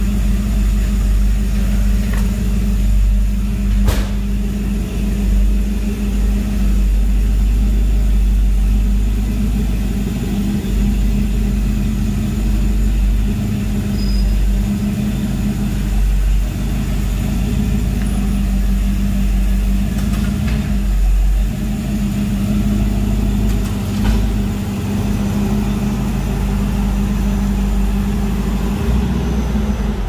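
A car engine idling steadily, with one sharp click about four seconds in.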